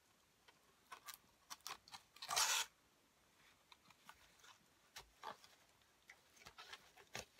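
Ribbon being threaded and pulled through holes in a paper card: light paper rustles and small taps, with one louder swish of ribbon sliding through about two and a half seconds in.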